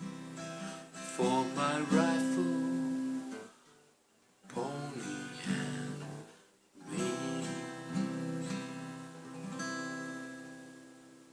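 Acoustic guitar strumming the closing chords of a slow cowboy ballad, in three phrases with short breaks between them; the last chord rings on and fades away.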